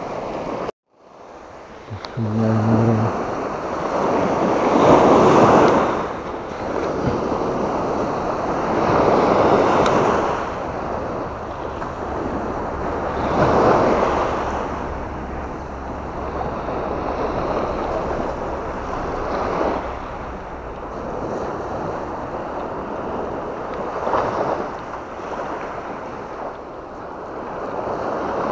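Small waves breaking and washing up on a sandy beach, swelling every four or five seconds, with wind rumbling on the microphone.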